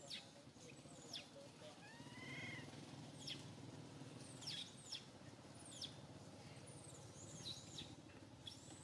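Faint high-pitched animal calls: short chirps sliding down in pitch every second or so, with one longer wavering call about two seconds in.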